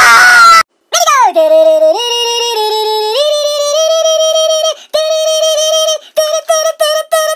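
A loud scream, then a high-pitched voice holding sung notes that slide down and step back up in pitch, breaking into short repeated notes near the end.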